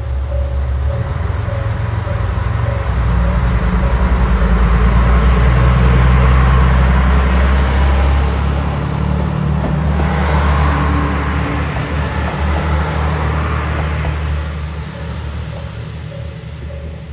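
A vehicle's low engine rumble, building to a peak midway, swelling once more and easing off toward the end.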